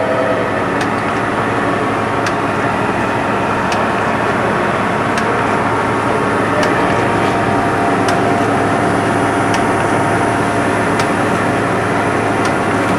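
Blanchard 18-36 vertical spindle rotary surface grinder running, its 18-inch segmented wheel grinding a chunk of steel on the turning magnetic chuck under automatic power downfeed: a steady, dense grinding noise with a faint tick about every second and a half.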